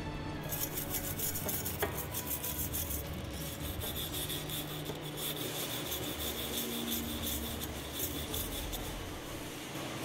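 Hand wire brush scrubbing a steel weld in rapid back-and-forth rasping strokes, starting about half a second in, to clean off weld slag and spatter before painting.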